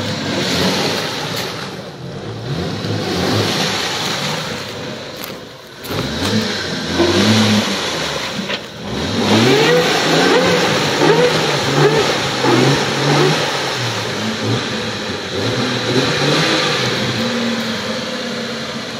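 Jeep Wrangler YJ engine revving hard again and again as it churns through deep muddy standing water, with a steady hiss of water and mud thrown by the wheels. The engine rises and falls in pitch several times, most sharply about halfway through, as the driver works the throttle to keep the Jeep moving.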